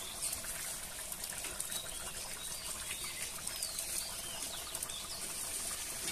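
Chicken curry boiling in an open pot over a wood fire: a steady hiss with light crackling ticks. A few faint bird chirps come and go.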